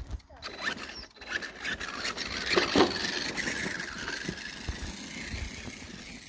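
Radio-controlled pickup truck's motor running as it drives over a dirt track: a whine rises in pitch, a loud rough scraping burst comes about halfway through, and then the whine holds steady.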